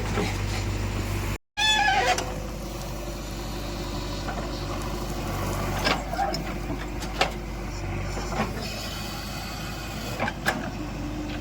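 Heavy diesel machinery, a JCB 3DX backhoe loader and a tractor, running steadily during gravel loading. Several sharp knocks come through the middle and later part. The sound cuts out briefly about one and a half seconds in, followed by a short pitched sound.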